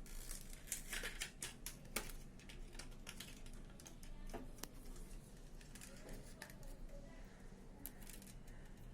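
Scattered light clicks and taps of small computer parts being handled: the M.2 SSD, its retaining clip and the motherboard. The clicks come thickest in the first few seconds, then thin out, over a faint low hum.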